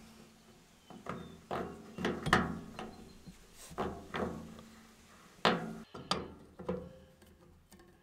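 A series of light, irregularly spaced metallic knocks, each with a short ring, as a brass garden-hose fitting and hose are twisted onto a faucet under a stainless steel sink.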